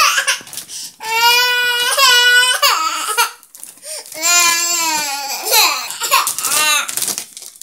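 A young child crying loudly in two long, wavering wails, the second lower in pitch, then shorter cries near the end.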